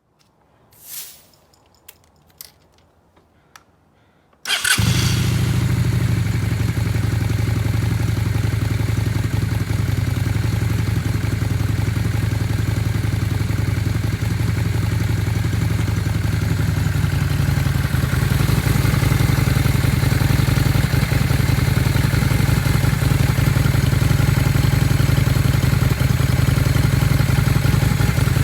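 A few faint clicks, then a cruiser motorcycle engine with a freshly repaired carburetor is cold-started. It catches at once and settles into a steady idle, getting a little louder about two-thirds of the way in.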